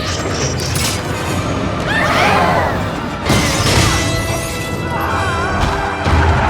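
Orchestral film score layered with action sound effects: booms and crashing, shattering impacts, with wavering high-pitched sounds about two seconds in and again near the end.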